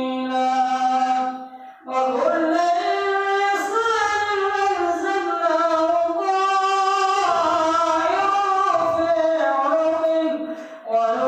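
Male imam chanting Qur'an recitation into a microphone, a melodic, drawn-out voice with long held and gliding notes. He pauses briefly for breath a little under two seconds in and again near the end, then carries on.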